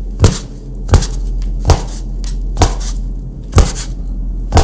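A fist knocking on a thick slab of styrofoam packing, six sharp knocks about a second apart, with a steady hiss between them.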